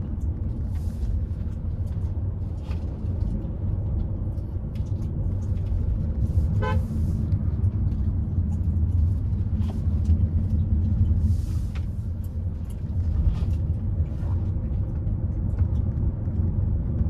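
Steady low road and engine rumble heard inside a Hyundai Creta driving down a winding ghat road, with a short toot of a car horn about seven seconds in.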